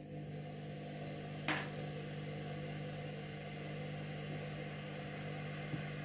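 Washing machine universal motor running steadily on a TDA1085 speed-controller board after being reversed, a low, even hum with a faint hiss. A single sharp click comes about a second and a half in.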